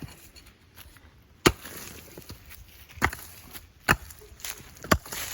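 Pick axe striking rocky clay ground, four sharp blows about a second apart at an uneven pace.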